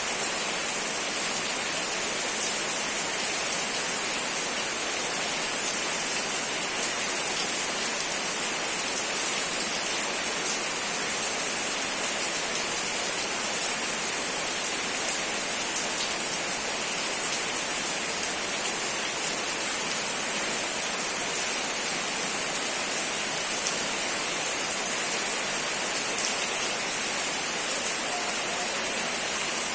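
Rain falling steadily: an even, high hiss with faint ticks of single drops here and there.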